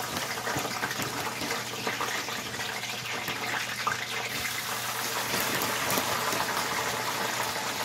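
Fries sizzling and bubbling in hot grease, a steady crackling hiss.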